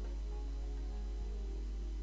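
Instrumental background music with held notes that change every fraction of a second, over a steady low hum.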